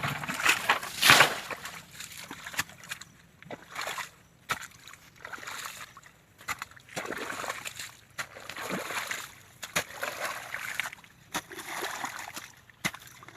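Water splashing and sloshing in irregular bursts, with a few sharp knocks; the loudest splash comes about a second in.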